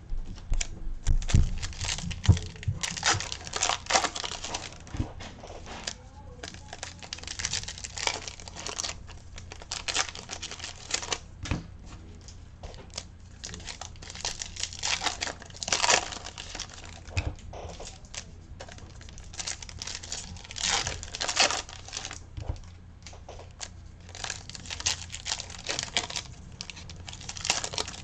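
Foil wrappers of Topps Stadium Club baseball card packs being torn open and crinkled one after another: a run of irregular crackling rustles and tears, every second or so.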